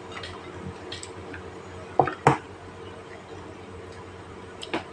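Tableware at a meal table: two sharp clicks close together about two seconds in, and a softer click near the end, against a quiet room.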